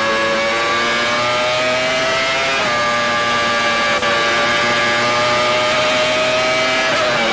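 Benetton's Renault V10 Formula 1 engine at high revs, heard from the onboard camera. Its pitch climbs slowly as the car accelerates, steps down briefly at an upshift about two and a half seconds in, and drops again near the end.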